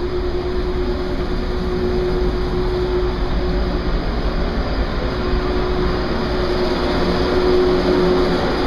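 Steady drone of the research ship R/V Knorr's machinery heard below decks: a deep rumble with a constant hum on one pitch, getting a little louder near the end.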